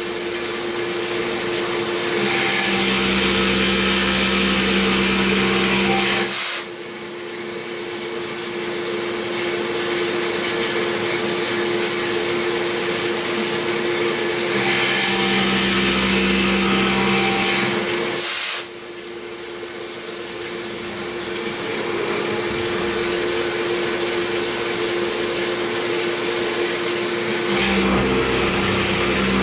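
CNC milling machine cutting a metal block with a long end mill under spraying coolant. A steady spindle whine runs under the cutting noise. The cutting noise drops suddenly twice, about a third and two-thirds of the way through, and builds back up as the cutter works along the part.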